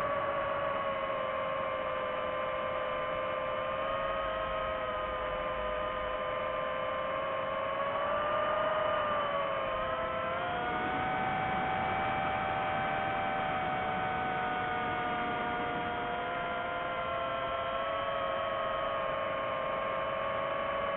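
DJI FPV drone's motors spinning Gemfan Hurricane 5236 propellers: a steady whine made of several tones. About ten seconds in the pitch shifts, with some tones rising and one falling as the motor speeds change.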